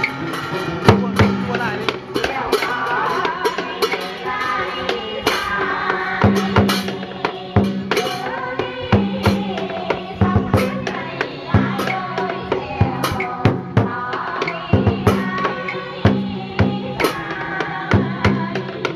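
Traditional Vietnamese water-puppet music: drums and other percussion beating a regular pattern under a wavering melodic line.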